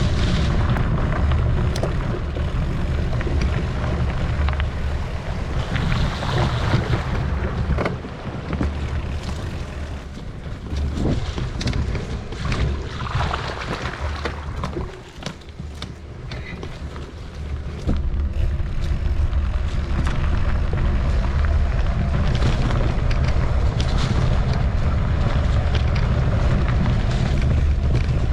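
Wind buffeting the microphone of a camera on a mountain bike riding down a rough trail, a heavy low rumble with scattered clicks and rattles from the bike. The rumble eases off for several seconds in the middle, then returns at full strength.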